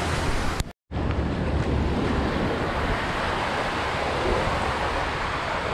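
Small waves washing onto a sandy shore in a steady wash of surf, with wind buffeting the microphone. The sound cuts out completely for a moment just under a second in.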